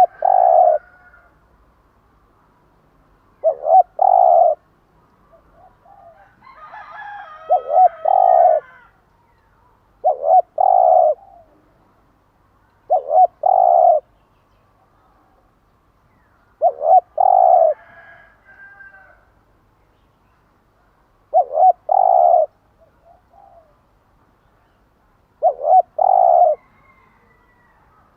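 Spotted dove cooing: a short repeated phrase of a few quick notes and a longer final coo, given eight times at intervals of about three to four seconds.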